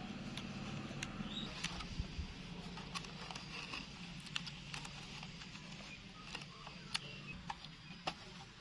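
Plastic yogurt cups being handled and set down on a small wooden table: scattered light clicks and taps at irregular moments, about a dozen in all.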